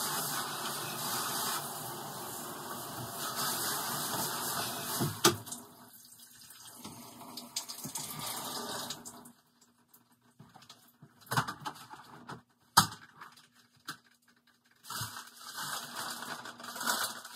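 Water spraying from a handheld shower head into a shower stall. It stops about five seconds in and is followed by scattered knocks and clicks as the shower fixtures are handled.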